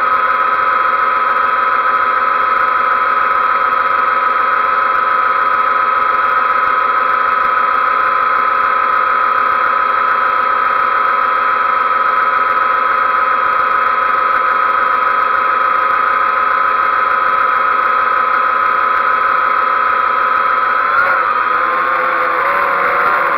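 XK X380 quadcopter's motors and propellers hovering, a steady high whine. About 21 seconds in, the pitch begins to waver as the motor speeds change.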